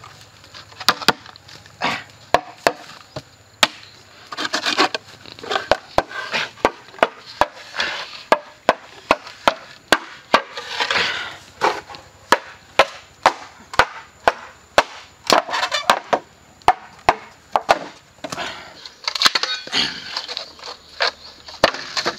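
Bamboo culms being struck with a length of wood and split lengthwise: a long run of sharp knocks, one or two a second, with several spells of cracking and splintering as the bamboo splits open.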